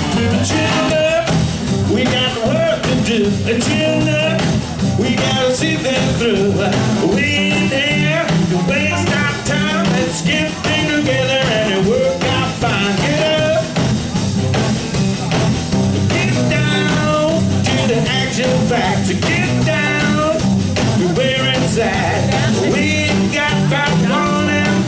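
Live blues band playing: drum kit, electric guitar and upright double bass, with singing at the front microphone.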